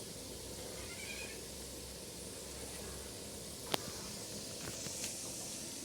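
Ginger, garlic and spices sizzling gently in oil over a very low flame, with one sharp click a little before four seconds in.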